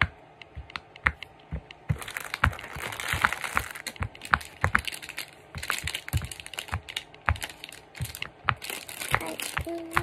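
Silicone pop-it fidget toy being pressed bubble by bubble: an irregular run of sharp little pops and clicks, a few a second. From about two seconds in there is a scratchy rustling under the pops.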